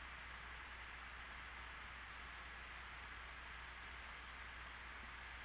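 Faint computer mouse clicks, several in quick pairs, every second or so, over a steady low hum and hiss.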